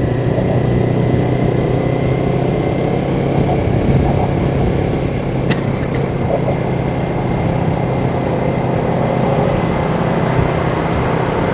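Kawasaki Ninja 400 parallel-twin running through an Akrapovic slip-on exhaust, ridden at a steady engine speed with no revving, heard from the rider's position. A single click comes about five and a half seconds in.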